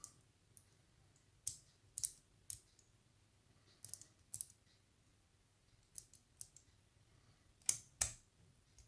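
Number wheels of a three-wheel combination lock being turned by hand, giving about a dozen short, sharp clicks at irregular intervals.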